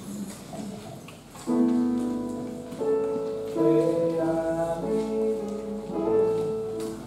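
Electronic keyboard playing a hymn in held, sustained chords that change every second or so, coming in about a second and a half in after faint room noise.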